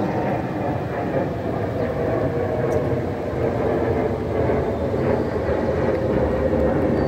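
Steady roar of a twin-engine jet airliner's engines as it passes overhead.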